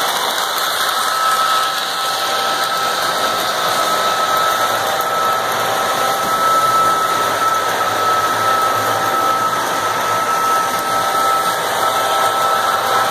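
Lionel O-gauge Union Pacific diesel locomotive with RailSounds running a freight train around FasTrack track: a steady whirring rumble of motor, wheels and track, with a thin steady high whine running through it.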